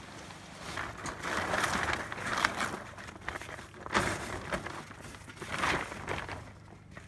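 Plastic tarp crinkling and rustling as it is pulled and tucked into place, in several surges.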